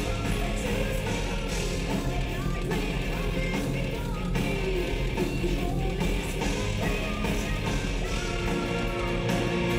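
Symphonic metal band playing live, heard from the crowd through the concert PA: a female lead vocalist sings over electric guitar and drums.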